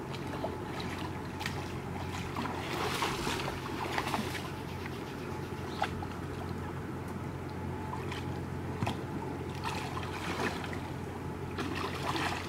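A hooked wels catfish thrashing at the surface beside an inflatable boat while it is grabbed by hand, making irregular bursts of splashing and sloshing water. A steady low rumble runs underneath.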